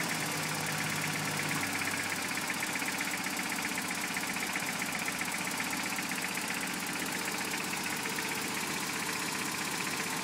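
Toyota 22RE 2.4-litre four-cylinder engine, freshly rebuilt, idling steadily with a fast, even knocking in time with the engine. The cause of the knock is unknown, and the owner finds it worrying.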